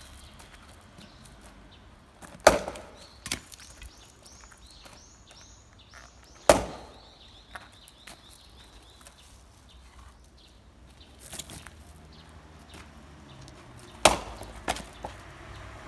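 Firewood being split with an axe: three hard, sharp strikes into wood, about two and a half, six and a half and fourteen seconds in, each followed by smaller knocks as the wood cracks apart and pieces fall.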